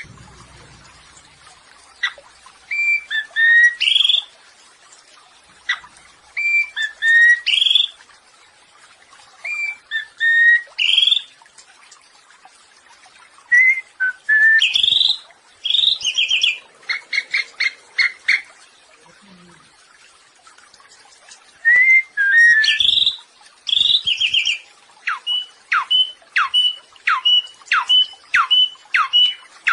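Samyong songbird singing, a tutor recording for training other birds. It repeats a short phrase of clear whistled and chattering notes with pauses between. Near the end it breaks into a fast run of downward-slurred whistles, about three a second.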